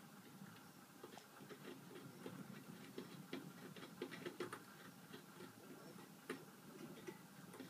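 Faint, scattered light clicks and ticks over a quiet background.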